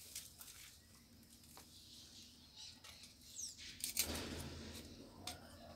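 Faint rustling and a few small sharp clicks from an old cast net being handled and cut with a knife to free its lead sinkers, with a longer rustle about four seconds in.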